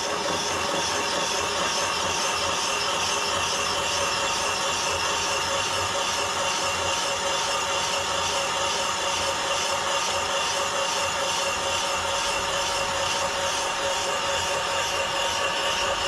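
Milling machine spindle turning a boring head that bores out the worn bearing housing in a motorcycle mag wheel's hub, opening it up to take a repair sleeve: a steady machine hum with steady whining tones over a hiss.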